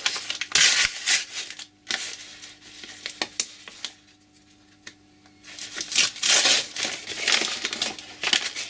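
Packaging crinkling and tearing in irregular bursts as a parcel is unwrapped by hand, going quiet for a second or two in the middle.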